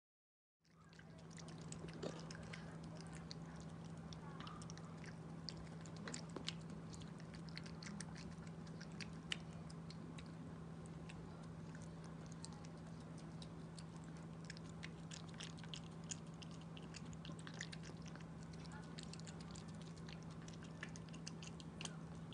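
Chihuahua eating dry kibble from a plastic bowl: an irregular run of small crunches and clicks as it chews, over a faint steady low hum.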